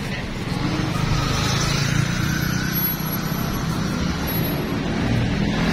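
Road traffic close by: car and motorcycle engines running in slow, queued traffic, a steady hum of engines and tyres.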